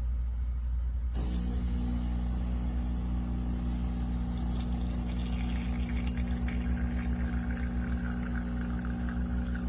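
A steady low mechanical hum with several even tones, joined about a second in by a fuller hiss.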